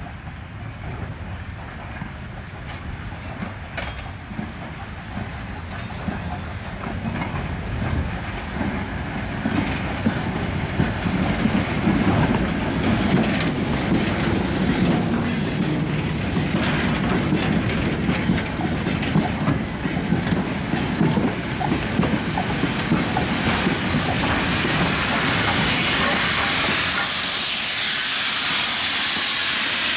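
Steam train approaching and passing on the track, wheels clicking over the rail joints and growing steadily louder, with a rising steam hiss over the last few seconds.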